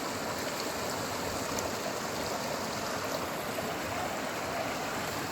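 Mountain stream running, a steady rush of water.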